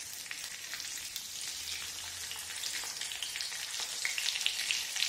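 Cumin seeds and lengthwise-cut red chillies sizzling and crackling in hot mustard oil in a kadhai as they are stirred with a steel spoon: the tadka (tempering) stage. The crackles come thicker toward the end.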